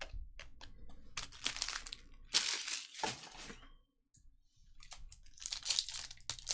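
Crinkling and tearing of a foil trading-card pack wrapper being handled and opened, in two spells with a short quiet gap between. A few light clicks of cards being handled come first.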